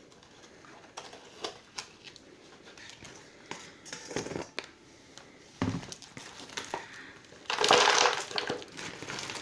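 Loose orchid bark rustling and the thin plastic-bottle pot crinkling as hands push bark in around the roots. Scattered small clicks, then a louder crinkling stretch about eight seconds in.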